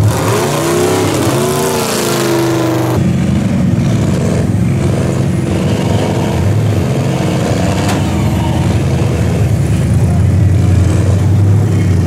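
Big engines of lifted mud trucks running, with the pitch rising and falling in the first few seconds as one is revved. About three seconds in, the sound changes abruptly to a steady, deep engine run.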